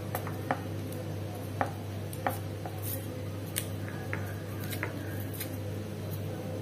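Kitchen knife slicing shallots held in the hand, giving irregular crisp clicks as the blade cuts through.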